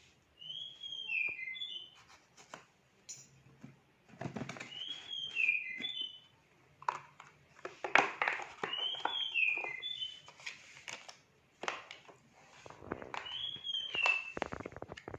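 A short high whistled phrase of a few falling notes repeats about every four seconds, over intermittent rustling and clicking.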